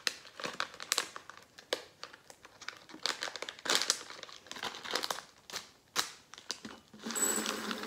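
A small packet of sugar sprinkles crinkling and crackling as it is handled and torn open by hand, in many short rustles, with a longer continuous tearing rustle near the end.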